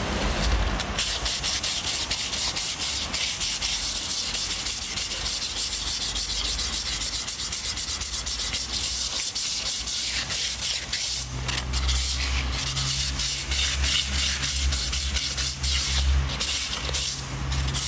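Hand sanding of a rusted brake surface with 400-grit sandpaper: quick, steady back-and-forth rubbing strokes to clean off rust and brake dust.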